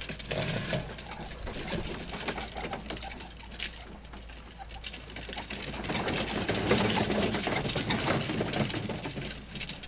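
Hard plastic wheels of a Little Tikes Cozy Coupe ride-on toy car rattling and clicking over brick paving as it is pushed along, a steady rapid clatter.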